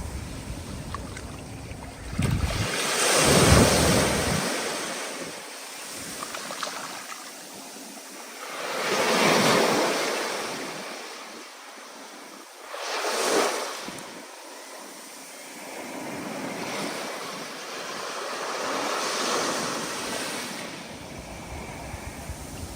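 Stormy ocean surf: waves rush in and break in repeated surges, three big ones in the first half and gentler swells after.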